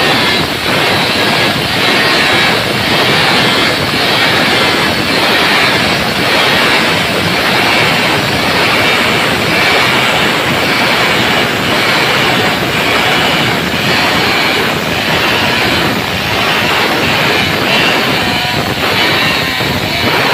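Stihl two-stroke chainsaw running steadily under load, its bar buried in a log as it cuts a long groove through the wood. Its pitch wavers a little near the end.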